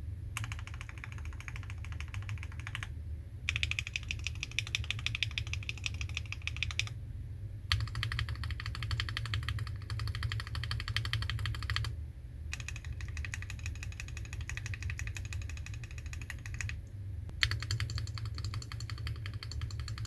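Fast typing on a 65% mechanical keyboard in a custom CNC-machined, powder-coated, gasket-mounted case: rapid keystroke clacks in runs of a few seconds with short pauses between them, over a steady low hum.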